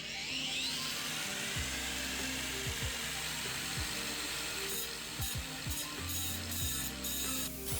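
Angle grinder spinning up with a rising whine, then running against the workpiece in a steady grinding hiss that turns choppy and stop-start in the second half, with background music underneath.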